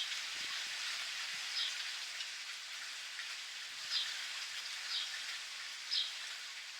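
Steady rain pattering, with a bird repeating a short, high, falling chirp five times, every second or two.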